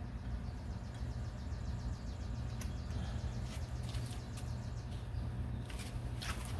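A few sharp plastic clicks, the loudest near the end, as the hatch's wiring connectors are handled and plugged back in. Underneath is a steady low hum, and in the first half a faint, rapid, high ticking.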